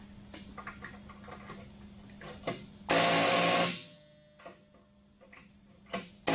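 Small handheld pneumatic air gun driving a belt lacing machine, run in one burst of just under a second about three seconds in: air hiss with a steady motor tone, falling off as it stops. Another burst starts right at the end. Light clicks of the tool against the machine come before it.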